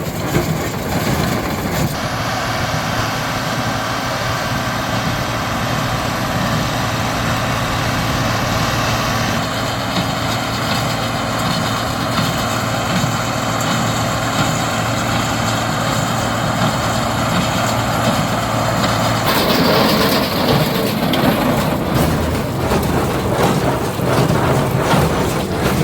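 A John Deere 4055 tractor's six-cylinder diesel engine running steadily, pulling a John Deere 338 small square baler at work. The baler's plunger and knotter add a rhythmic mechanical clatter, which is loudest in the last few seconds.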